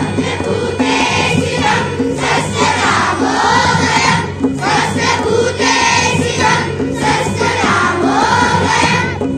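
Group of schoolchildren singing a prayer in unison, accompanied by tabla and dholak drums keeping a steady beat.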